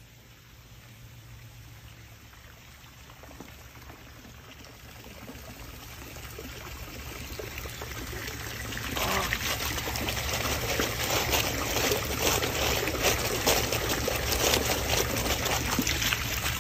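Water trickling and splashing, growing louder and turning into a heavy pouring with many small splashes about nine seconds in, as a square lift net of sea cucumbers is hauled out of a pond and water streams through its mesh.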